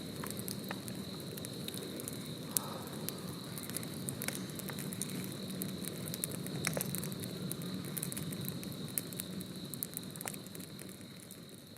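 Wood bonfire crackling, with frequent sharp pops and snaps over a steady hiss of burning, and a thin steady high tone alongside. It fades out near the end.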